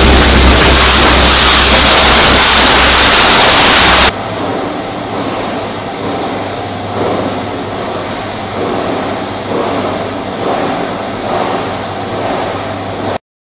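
Steady machinery noise of an e-waste recycling line: very loud at first, with a strong low rumble, as a printer rides the infeed conveyor toward the shredder. It drops abruptly about four seconds in to a quieter, steady running of the vertical shredding mill with slight swells, and cuts off suddenly near the end.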